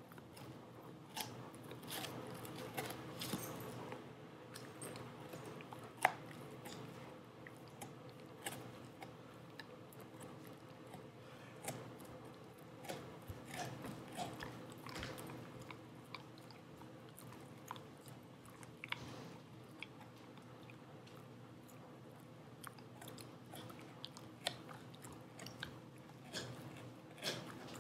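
A dog chewing a rawhide strip: irregular clicks of teeth working the hide, the sharpest about six seconds in.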